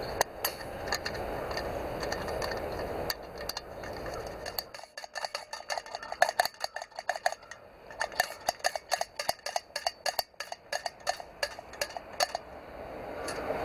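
A steady rushing noise for the first few seconds, then a quick, irregular run of light metallic clinks and taps, as of small metal parts being handled.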